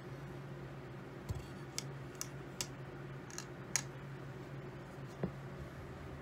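A handful of light, sharp clicks and taps, about seven spread over several seconds, as a wooden craps stick hooks and drags a pair of dice across the felt layout, over a steady low hum.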